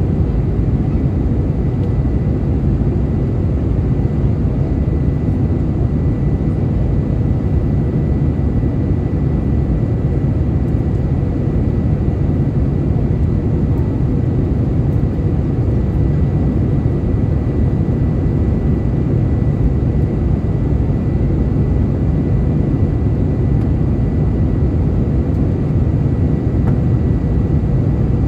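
Steady cabin roar of an Airbus A319-111 airliner in flight, heard from a passenger seat: a deep, even rush of airflow and engine noise with a thin steady whine on top.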